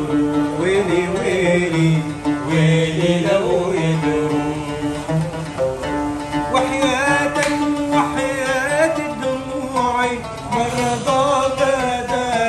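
A man singing while playing an oud, the Arabic short-necked lute, its plucked strings under long sung notes that waver in pitch.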